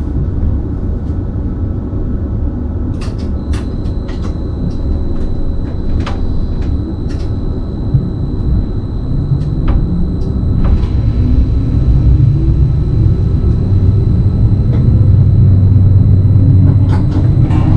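BLS RABe 515 electric multiple unit pulling away and gathering speed: a low rumble of the running gear that grows louder, with scattered sharp clicks and, in the second half, a rising whine from the traction drive. A thin steady high tone sits above it from a few seconds in.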